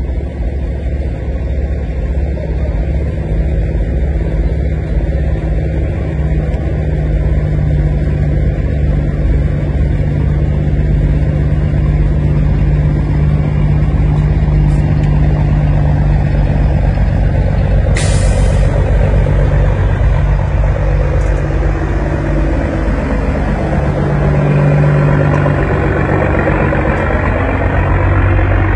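Semi truck's diesel engine running loud through tall twin exhaust stacks as it rolls up. There is a short air-brake hiss about two-thirds of the way in, and the engine note climbs steadily in pitch near the end as the truck accelerates.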